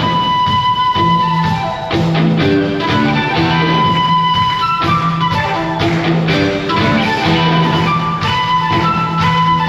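Live rock band playing, heard from the audience in a concert hall: flute over electric guitar, bass and drums. A phrase repeats every few seconds, a held high note that then steps down.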